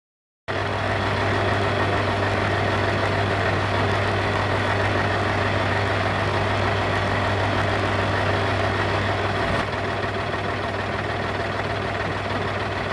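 A fire engine's diesel engine idling steadily with a low, even hum. It starts about half a second in, after a moment of silence.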